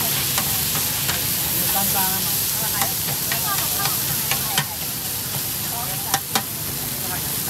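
Food sizzling in a large wok while two metal spatulas stir and scrape it, with sharp metal clinks of the spatulas against the wok every second or so. The loudest are two clinks close together about six seconds in.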